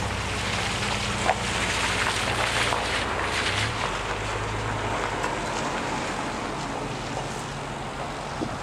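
A car engine idling steadily, its low note shifting slightly about four seconds in, with wind buffeting the microphone.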